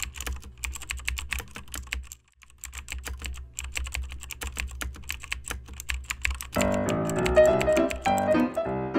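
Computer keyboard typing, a fast run of keystroke clicks with a short pause about two seconds in. Music with pitched notes comes in about six and a half seconds in.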